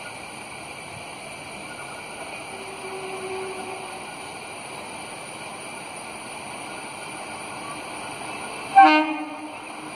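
Horn of an approaching WAP-1 electric locomotive: one short, loud blast about nine seconds in that dies away over about a second, over a steady background hiss.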